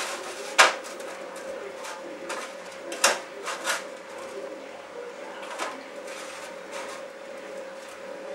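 A few sharp taps and clicks of sausages being set down on a metal baking tray, loudest about half a second in and again around three seconds, over a steady faint hum.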